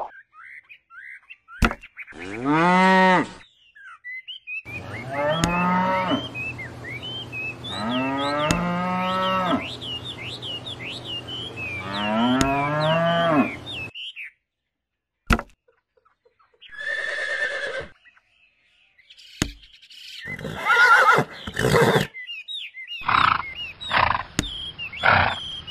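Cattle mooing: four long moos, with high chirping behind the middle ones. Later come several short, rough bursts of another sound.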